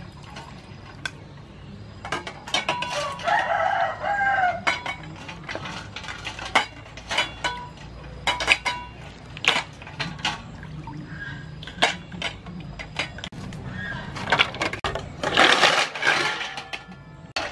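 Sea snail shells knocking and clinking against a stainless steel bowl and each other as they are scrubbed in water. A rooster crows once in the background about three seconds in. Near the end comes a loud rush of water as the bowl is tipped and drained.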